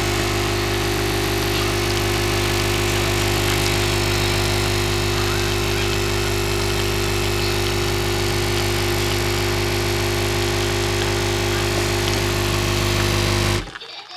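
A household electric motor running steadily: a constant hum with a hiss over it, switched off abruptly near the end.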